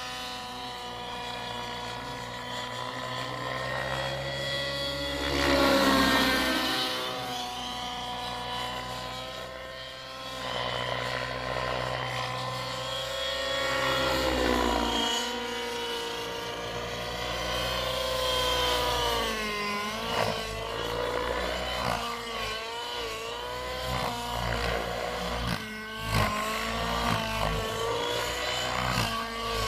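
Align T-Rex 700 nitro radio-controlled helicopter flying aerobatics: its nitro glow engine and rotor whine rise and fall in pitch as it manoeuvres. The sound is loudest about five seconds in, and the pitch wavers quickly through the flips in the second half.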